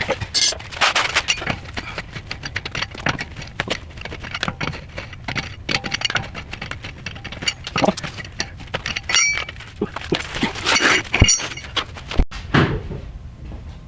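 Irregular metallic clinks, rattles and knocks of steel tools and parts being handled during brake work on a car, some strokes ringing briefly.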